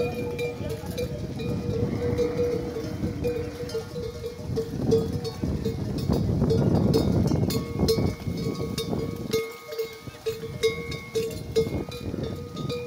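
Bells hung from camels' necks clanking in an uneven rhythm as the herd walks, over a low rushing noise that swells about six seconds in.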